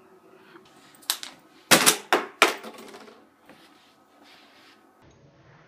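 Plastic water bottle landing on a wooden dresser top and clattering over: a light click about a second in, then three sharp knocks in quick succession as it tumbles onto its side.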